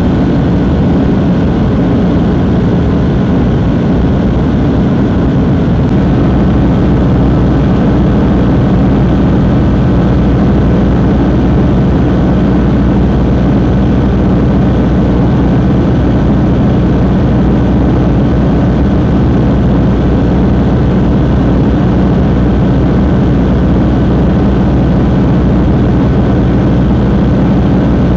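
Steady drone of a light aircraft's propeller engine in level flight, heard from inside the cockpit along with airflow noise. The pitch and level hold constant throughout.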